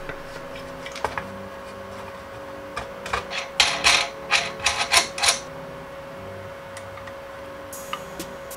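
Hands handling 3D-printed plastic parts, steel rods and bearings during assembly: a few light clicks, then a quick run of five or six rattling, scraping knocks about halfway through.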